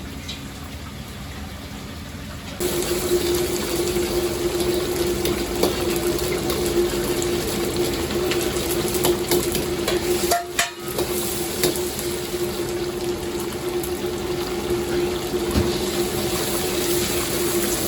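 Restaurant wok station during stir-frying: a steady rushing noise with a constant hum, and sizzling and scraping over it. It jumps louder about two and a half seconds in and dips briefly near the middle.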